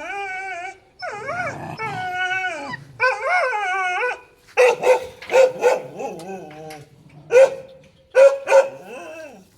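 Dog whining in long, wavering cries for the first few seconds, then breaking into a run of short, sharp barks and yelps.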